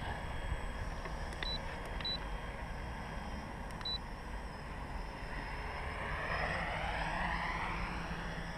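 Small 3D-printed tricopter flying overhead: a faint propeller whine over low wind rumble that swells about six seconds in, its pitch falling as it passes. Three short high beeps sound in the first four seconds.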